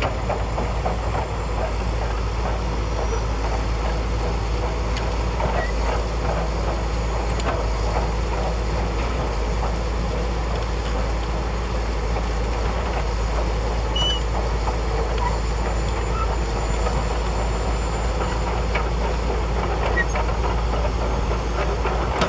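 Shantui DH17C2 crawler bulldozer's diesel engine running steadily under load, with the steel tracks clanking and rattling as it pushes sand.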